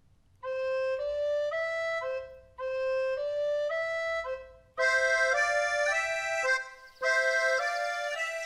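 Flute and accordion playing a simple tune as a duet, in short repeated phrases with brief pauses between them; about five seconds in the two parts sound together and the music gets fuller and louder.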